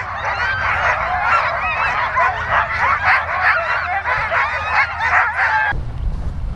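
A chorus of harnessed sled dogs barking, yelping and yipping all at once, excited while hitched and held on the line before running. The chorus cuts off sharply about six seconds in, leaving a low rumble of wind on the microphone.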